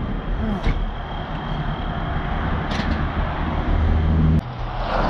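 Tow truck driving along the road: steady engine and road rumble heard from on board, with an abrupt break near the end.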